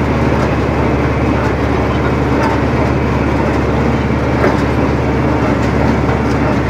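John Deere 4020 tractor running steadily under load while pulling a New Holland 315 Hayliner square baler that is baling hay, a constant engine drone mixed with the baler's working machinery and faint scattered clicks.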